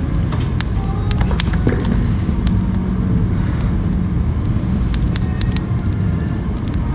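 Firewood burning in a wood stove: scattered sharp crackles and pops over a steady low rumble.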